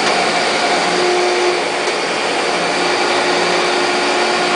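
Landis 6"x18" cylindrical grinder running: a steady whir and hiss from its motors and spinning wheel, with a few held tones. One lower tone joins about a second in.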